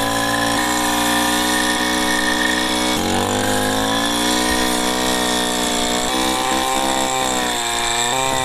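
Backpack brush cutter fitted with a 9-inch, 24-tooth carbide-tipped circular saw blade, its engine running at speed. The engine's pitch sags and recovers several times as the blade cuts.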